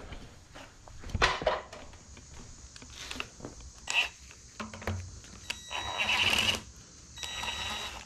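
Cordless drill set to low speed and reverse, run in two short bursts of about a second each near the end, backing bolts out. Before that, a few knocks and clicks of tools being handled.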